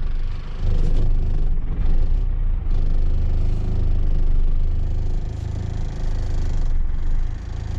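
Car engine running at low speed as the vehicle creeps forward into a warehouse, heard from inside the cabin as a steady low rumble.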